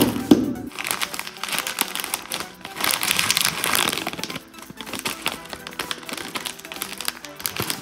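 Carbonated soda fizzing and crackling as it foams up from added Mentos, with background music.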